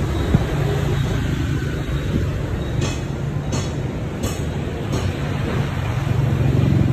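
Street traffic noise: a steady low motor-vehicle hum and rumble that swells toward the end, with a few short ticks in the middle.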